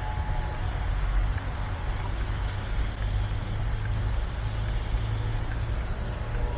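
Steady low rumble of heavy motor traffic: a large vehicle's engine running as it passes.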